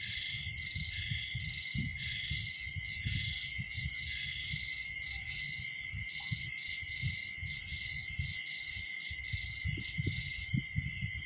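Night-time insect chorus: a continuous high-pitched cricket trill, with a second caller pulsing about once every two-thirds of a second until about ten seconds in. Irregular low rumbling noise on the microphone runs underneath.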